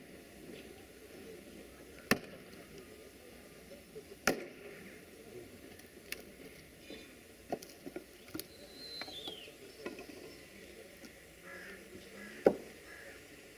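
Sharp knocks a second or more apart, the loudest near the end, as railway workers handle the coupling between a narrow-gauge steam locomotive's open coach and the train during shunting.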